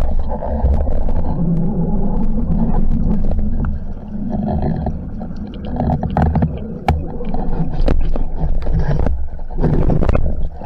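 Muffled water swirling and rumbling, heard through an underwater camera housing, as a spearfisher swims and fights a speared mullet on the line. Scattered clicks and knocks of gear run through it.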